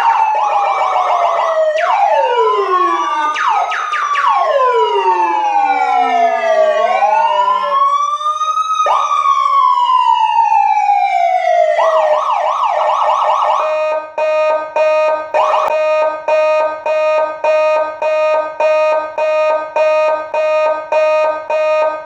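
Electronic siren sounds: several wailing tones sweeping down and up over one another, then a steady beeping tone that pulses on and off about one and a half times a second.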